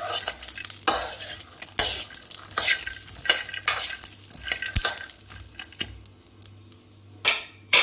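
A steel spoon stirs raw peanuts around a pan with a little ghee on low heat. The peanuts scrape and rattle against the metal about once a second, with a light sizzle underneath. The stirring eases off about five seconds in, and there is one sharp knock near the end.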